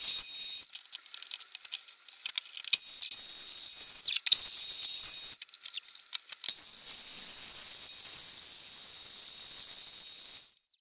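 Handheld electric router running at full speed with a high-pitched whine, its pitch dipping each time the bit bites into the pine board it is grooving. It drops away in two short pauses and cuts off just before the end.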